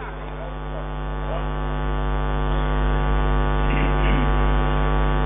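Steady electrical mains hum picked up through the microphone and sound system, growing a little louder over the first two seconds.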